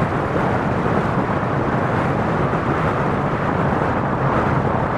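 Airbus A380's four Rolls-Royce Trent 900 jet engines at takeoff thrust, a steady roar as the aircraft rolls and rotates for liftoff, with strong wind rumbling on the microphone.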